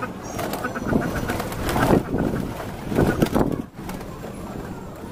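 A flock of domestic pigeons on the ground, cooing, with two louder bursts of wing flapping about two and three seconds in.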